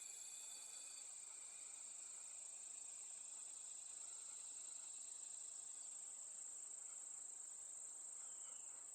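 Faint, steady high-pitched insect drone, an unbroken single tone like crickets, over quiet woodland air.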